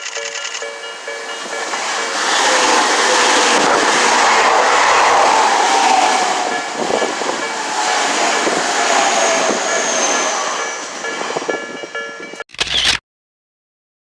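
A train passing a railway level crossing, getting louder for about two seconds and then fading, with a falling whine, while the crossing bell keeps ringing in a steady pulse. The sound cuts off abruptly near the end.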